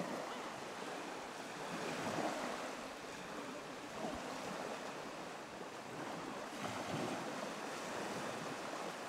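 Small waves breaking and washing up a sandy beach, a steady rush that swells twice, about two seconds in and again near seven seconds.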